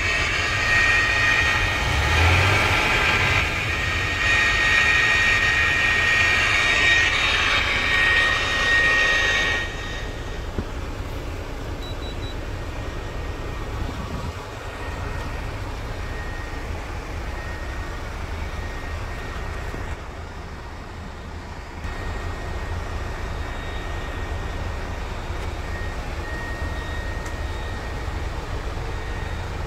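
Hyundai 25-ton truck's diesel engine running steadily, heard from inside the cab, with a low rumble and a thin high whine. It is louder for about the first ten seconds, then settles to a steadier, quieter run.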